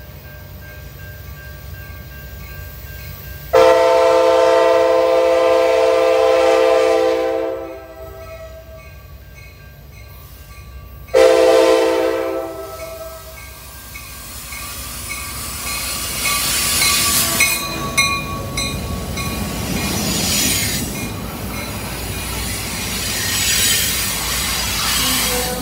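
Amtrak Piedmont passenger locomotive sounding its chord horn: one long blast about four seconds in, then a shorter blast near the middle. Afterwards the slow-moving train draws close and its locomotive and cars roll past, with a rising rumble, clatter and high-pitched squealing.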